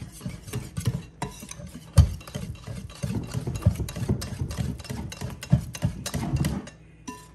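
Wire whisk beating pancake batter in a glass mixing bowl: rapid, irregular clicks and scrapes of the whisk against the glass, stopping shortly before the end.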